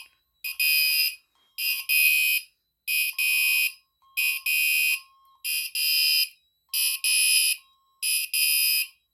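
Gentex Commander 3 fire alarm horn sounding in a steady repeating pattern: seven high-pitched blasts, about one every 1.2 seconds, each led by a short chirp. A fainter, lower tone sounds under several of the blasts.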